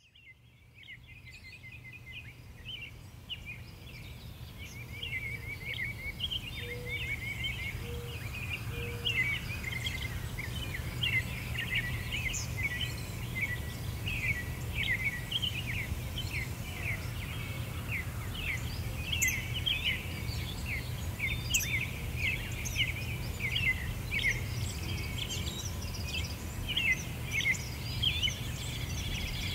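Many small birds chirping in a dense, continuous chorus over a steady low rumble; the sound fades in over the first few seconds.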